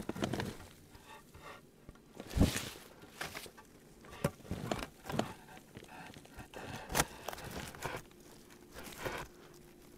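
Footsteps crunching in snow with rustling, shuffling about on the spot. A heavy thump comes about two and a half seconds in and a sharp knock about seven seconds in.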